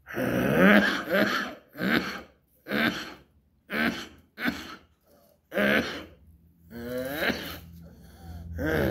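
A man in a coughing fit right after a drag on a cigarette: about eight coughs roughly a second apart, one of them a little past the middle longer and drawn out.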